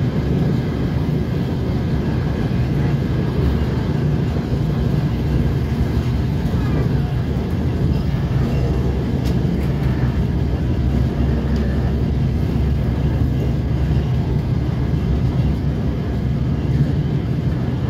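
DR1A diesel multiple unit running at speed, heard from inside the carriage: a steady rumble of wheels on the track and the diesel engine's low drone.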